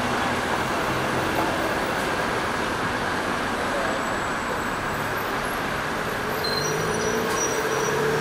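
Steady city street traffic: cars and buses running past with the drone of engines and tyres, and an engine note rising a little near the end.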